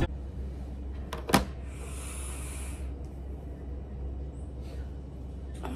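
Semi-truck diesel engine idling as a steady low hum heard inside the cab. Two sharp clicks come about a second in, followed by a short hiss.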